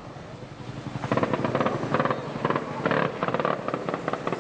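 Police helicopter's rotor beating overhead, with repeated bursts of automatic gunfire from about a second in.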